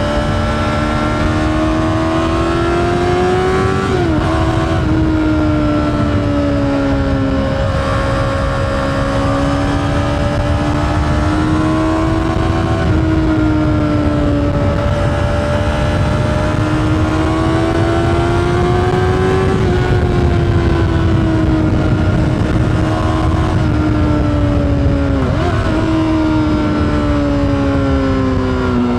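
Honda CBR600RR's inline-four engine running through an Akrapovič exhaust while riding, its pitch climbing and easing with the throttle and dropping sharply twice, about four seconds in and near the end, as at gear changes. A steady low rumble of wind and road noise runs underneath.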